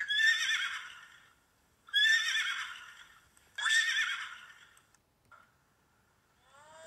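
A horse whinnying three times, each neigh shrill and quavering and trailing off over about a second. Near the end a spotted hyena's whoop begins, a call that rises in pitch.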